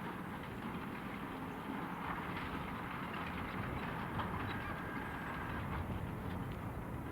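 Valtra T153 tractor engine working under load as it pulls a plough, a steady low rumble.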